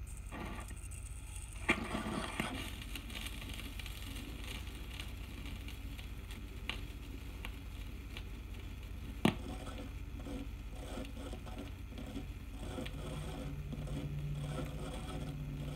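Vinyl LP surface noise as the stylus runs through the lead-in groove: a steady low hum and hiss with scattered crackle and two sharp pops, about two seconds in and about nine seconds in. A faint low tone comes in near the end.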